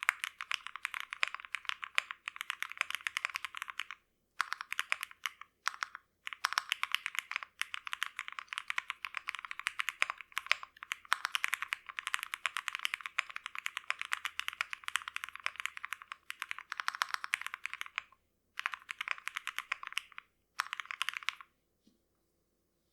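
Fast typing on an OwLab Mr. Suit mechanical keyboard with lubed Gateron X switches, a POM plate, XMI Cherry TA keycaps and no case foam: a dense run of key clicks. It breaks off briefly a few times and stops shortly before the end.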